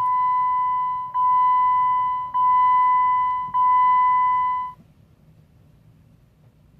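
Jeep Wrangler JK's dashboard warning chime beeping with the ignition key turned on: four long, steady beeps of about a second each, back to back, stopping about two-thirds of the way through.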